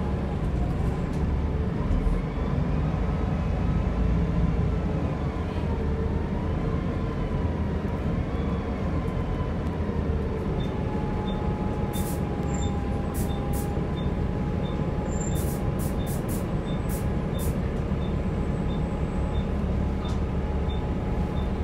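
Inside a single-deck bus on the move: steady engine and road rumble with a whine that wavers up and down in pitch. From about halfway a faint regular tick comes about one and a half times a second, and a few short sharp clicks or rattles sound around the middle.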